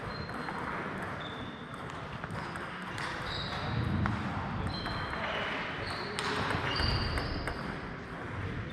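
Table tennis balls clicking off tables and bats at several tables at once, in scattered, irregular ticks, over faint background voices.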